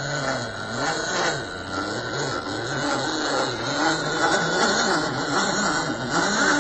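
MN86K radio-controlled crawler's electric motor and geared drivetrain whining as it climbs through mud, the pitch rising and falling over and over as the throttle is worked, over a steady higher whine.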